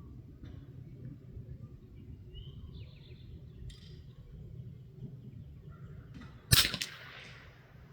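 A single shot from a Hatsan Escort .22 LR rifle, a sharp crack about two-thirds of the way in, with a short tail after it.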